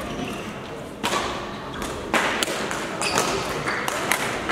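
Badminton rally: sharp racket-on-shuttlecock hits about once a second, echoing in a large sports hall, with dull thumps of feet on the court floor.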